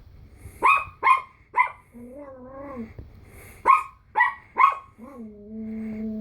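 Pomeranian puppy barking at a Slinky that frightens it: three sharp yaps in quick succession, then three more a couple of seconds later. Between the two groups comes a wavering, drawn-out pitched sound, and a steady held tone begins about five seconds in.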